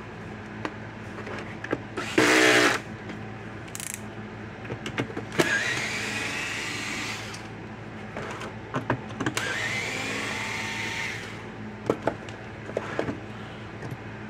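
Cordless drill-driver backing screws out of a plastic fence-charger case: a short loud burst about two seconds in, then two longer runs whose motor whine rises in pitch, with clicks of the bit and screws in between.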